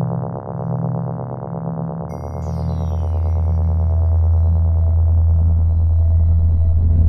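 Electronic synthesizer music: a sustained drone of steady stacked tones, joined about two seconds in by a deep low note and a high sweep that falls in pitch, swelling slowly in loudness.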